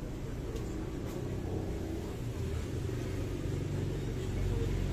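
A low, steady rumble that grows louder near the end.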